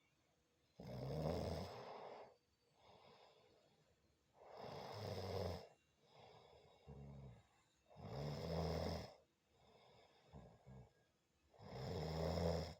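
A woman snoring: four loud snores about one every three and a half seconds, each followed by a quieter, shorter snore.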